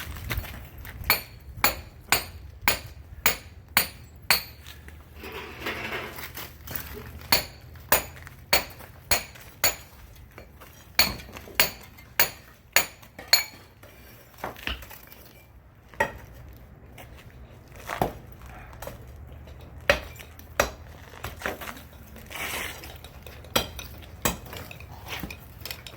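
Hammer blows knocking down the brick and clay wall of a tatara smelting furnace: sharp clinking strikes in two fast runs of about one or two a second, then scattered single blows.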